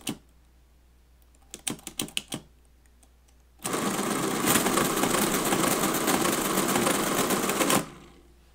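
Friden STW-10 electromechanical calculator: a few sharp clicks of its keys being pressed, then about a second and a half later the machine runs through a calculation with a dense, even mechanical clatter for about four seconds that stops abruptly.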